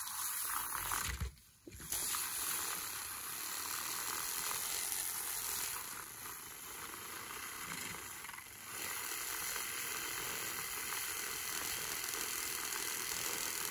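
Battery-operated handheld milk frother whisking heated almond milk in a glass measuring cup: a steady whirring hiss, cut off briefly about a second in, then running on.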